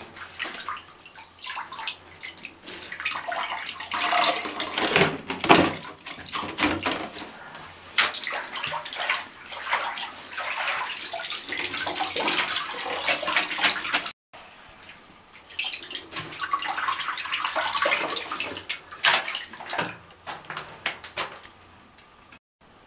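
Water splashing and dripping as a string mop is dunked and wrung out in a plastic mop bucket's wringer basket. The sound breaks off suddenly about 14 seconds in and starts again.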